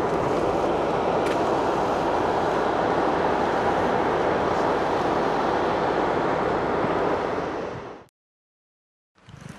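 Small shop vac running steadily as the suction for a bee vacuum collecting a honeybee swarm. It cuts off abruptly about eight seconds in, leaving a second of silence.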